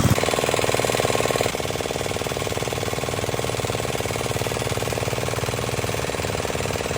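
Engine-driven water pump running steadily with a fast, even chugging while it pumps the water out of a pond to drain it. The sound drops a little in level about a second and a half in, then runs on unchanged.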